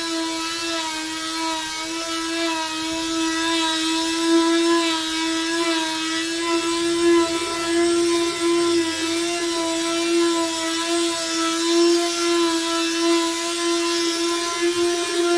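Electric palm sander running steadily on a wooden tabletop: an even motor whine at one pitch, with the rasp of the sanding pad on the wood.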